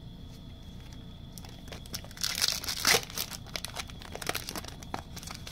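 Foil wrapper of a trading-card pack being torn open and crinkled, loudest about two to three seconds in, with light clicks and rustles of cards being handled.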